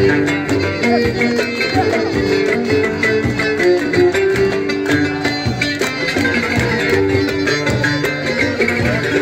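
Live traditional ensemble music: a violin playing the melody over an oud and hand drums beating a steady rhythm.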